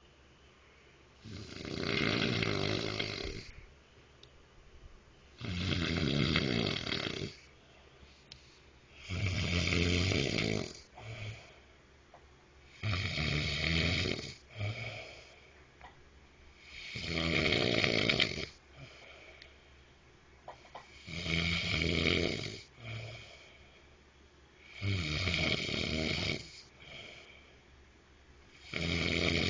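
A man snoring loudly in his sleep: a long snore about every four seconds, eight in all, each followed by a short, softer breath.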